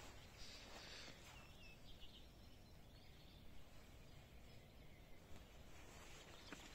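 Near silence with faint birdsong: a few short, high chirps from small birds about a second and a half in, over a low, steady background rumble.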